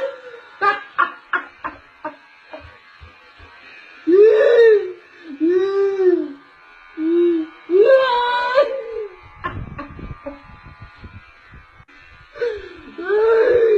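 Wailing, sobbing vocal cries from a dance routine's backing track played over a PA: about five separate drawn-out cries that rise and fall, with pauses between. A run of short sharp clicks comes in the first few seconds.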